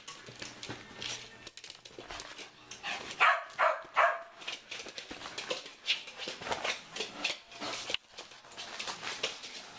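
Small dog giving short barks or yips, the two loudest about three and four seconds in, among quick clicks and scrapes on a laminate floor.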